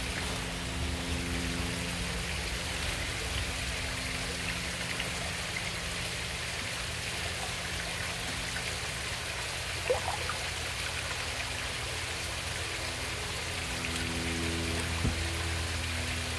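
Steady rain-like splashing and trickling of water from a koi pond's filtration and water return, with a low hum underneath. There are a couple of brief knocks, about ten and fifteen seconds in.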